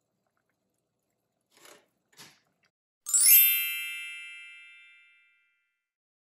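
A sparkling chime sound effect: a glittering cluster of high bell-like tones struck about three seconds in and ringing away over about two seconds. Before it come two faint taps.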